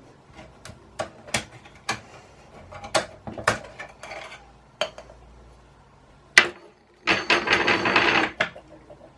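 Hand work on a portable bandsaw during disassembly: scattered clicks and knocks of metal parts and tools being handled, then about a second and a half of loud clattering near the end.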